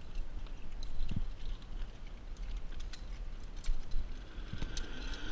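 Wind buffeting the microphone with an uneven low rumble, with scattered sharp clicks and knocks from the climbing harness gear and the metal-and-fibreglass platform.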